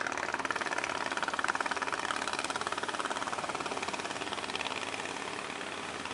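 Inboard engine of a wooden fishing boat running steadily under way, with a rapid, even chugging beat that eases slightly toward the end.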